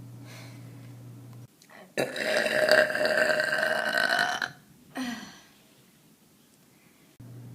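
A person burping: one long, loud burp lasting about two and a half seconds at a fairly steady pitch, then a short, lower second burp.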